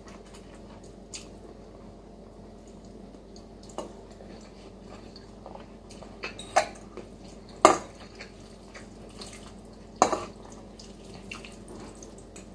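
A metal fork clinking against a ceramic bowl of noodles while eating: several short, sharp clinks, the loudest about eight and ten seconds in.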